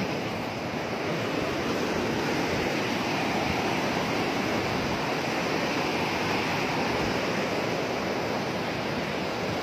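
Steady rushing of water pouring through a sluice gate.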